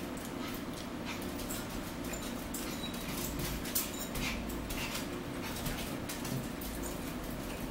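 Close-up eating sounds: chewing and mouth noises with many short clicks of forks on plates, over a steady low hum.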